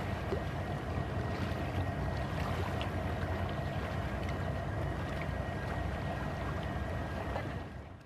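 Small waves lapping and splashing against shoreline rocks, over a steady low rumble, fading out near the end.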